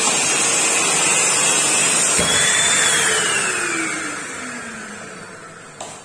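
1000-watt corded handheld vacuum cleaner running. After a click about two seconds in, its motor whine falls in pitch and fades as the motor winds down. A short click near the end.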